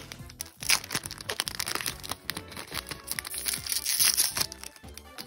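Foil booster-pack wrapper crinkling and tearing as it is ripped open and the cards are pulled out, over background music.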